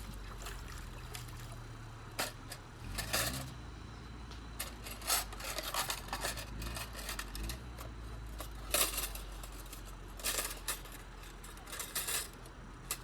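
Scattered sharp clicks and clinks of small hard objects knocking together, over a steady low hum.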